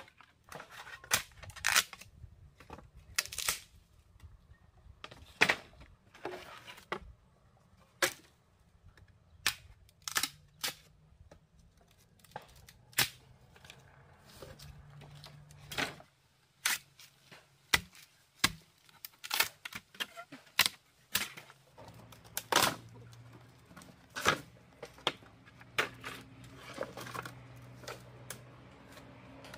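A series of sharp cracks and knocks at irregular intervals, about one a second, over a faint low hum.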